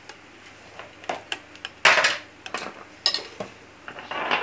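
Plates and cutlery clinking and clattering on a countertop as dishes are set down and moved about: a string of short knocks, the loudest about two seconds in, and a clatter with a brief ringing clink near the end.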